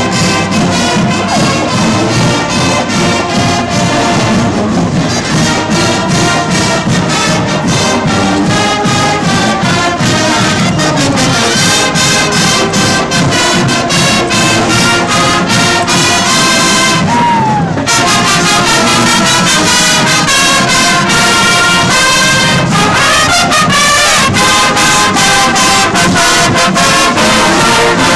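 College marching band playing a brass-led tune on the march, trumpets and other horns over a steady drum beat. The music changes abruptly about two-thirds of the way through.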